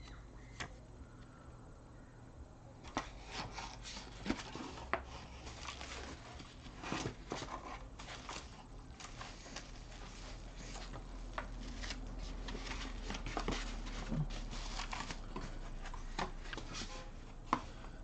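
Bubble-wrap packaging and a cardboard box being handled, with irregular crinkling and sharp crackles and taps that grow busier from about three seconds in.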